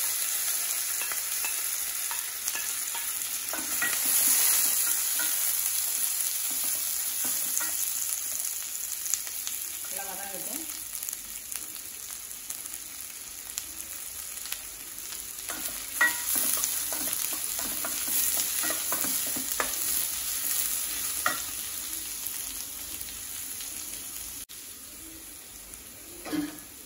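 Sliced onions, green chilli and curry leaves sizzling in hot groundnut oil in a stainless steel kadai, with a few scrapes from a wooden spatula stirring them. The sizzle is loudest at first and dies down gradually as the onions soften.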